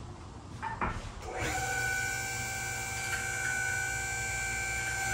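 MaxJax two-post low-rise lift's electric-hydraulic power unit being switched on: a few clicks, then about a second and a half in the pump motor starts and runs with a steady whine, raising the lift.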